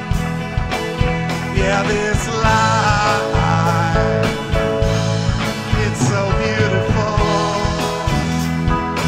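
Live rock band playing an instrumental passage: a drum kit keeps a steady beat under electric guitars, bass and an electric keyboard. A lead line with wavering, bent notes rises over the band about two seconds in.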